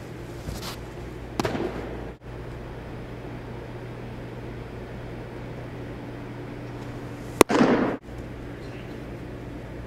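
Baseball pitches smacking into a catcher's mitt, two sharp pops about six seconds apart, each ringing out in the echo of a large indoor fieldhouse over a steady low hum.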